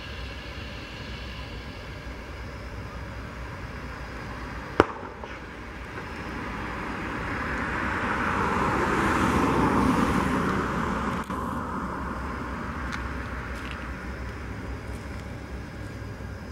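Airbus A319's twin jet engines at taxi power: a steady rush with a faint high whine, swelling louder for a few seconds in the middle and easing off again. A single sharp click about five seconds in.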